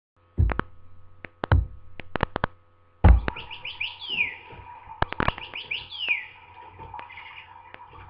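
Battery-operated toy songbird in a cage chirping electronically: a run of quick chirps ending in a downward-swooping whistle, heard twice, about three and five seconds in. Several sharp clicks come before it in the first three seconds.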